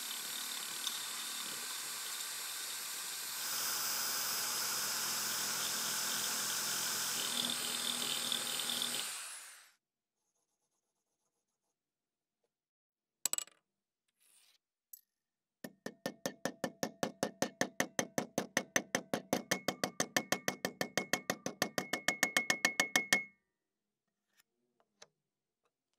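Electric drill spinning a small sanding drum made on a rivet pin, sanding the edge of a wooden board. It runs steadily, gets louder about three and a half seconds in, and winds down about nine and a half seconds in. After a pause and a single click, a fast run of taps, about eight a second, goes on for some seven seconds.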